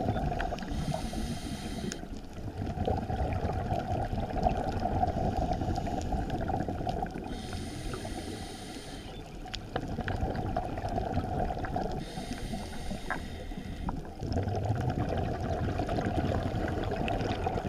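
A scuba diver's regulator breathing, heard underwater through the camera housing: three long hisses of air about five seconds apart, over a steady bubbling, gurgling underwater rumble.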